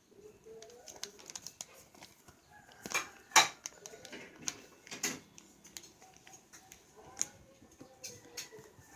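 A sheet of paper being folded and creased by hand: irregular rustling and crackling, with the sharpest crackle about three seconds in.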